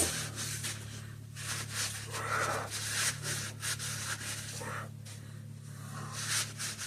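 Handling noise as the camera is moved in close: rubbing and scuffing with scattered light clicks, over a steady low hum.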